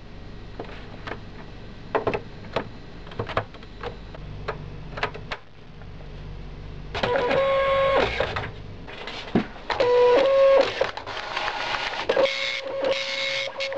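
Dot matrix impact printer printing on tractor-feed fanfold paper: buzzing passes of the pin print head with a steady pitch, first in two short runs from about seven seconds in, then without a break from about twelve seconds. Before that, only scattered light clicks over a low hum.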